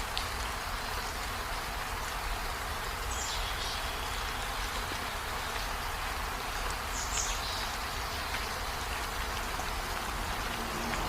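Steady rushing hiss of water, with a low rumble underneath and two short high chirps about three and seven seconds in.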